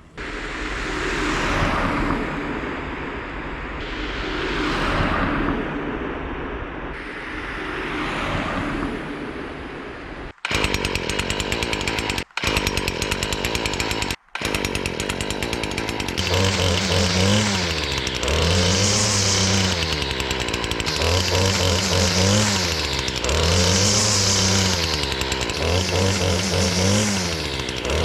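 A small motor running, its pitch rising and falling again and again, about once every second and a half. Before that comes swelling, whooshing noise, and the sound cuts out briefly three times.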